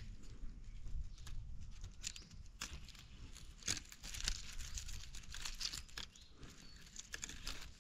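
Irregular sharp crackles and snaps as young phak wan pa (Melientha suavis) shoots are broken off by hand, with dry leaves and stems rustling.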